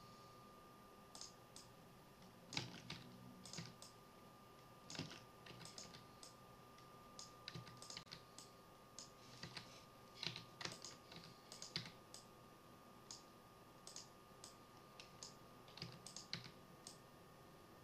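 Faint, irregular clicking of computer keyboard keys and mouse buttons, dozens of short clicks in uneven clusters, over a faint steady high-pitched hum.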